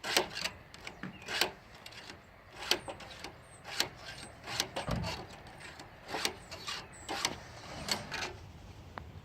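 A chainsaw chain's cutting teeth being sharpened by hand with a file: a series of short scraping strokes, about one a second and unevenly spaced. The chain has gone dull from milling.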